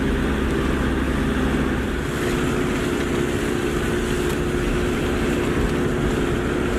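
Off-road 4x4's engine running steadily at low revs, with no revving, as the vehicle crawls along a muddy dirt track, heard from inside the cab.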